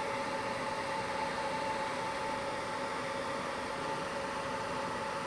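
Citizen M-20 Swiss-type CNC lathe running under power: a steady hum and hiss with two steady tones held throughout, and no indexing clunks.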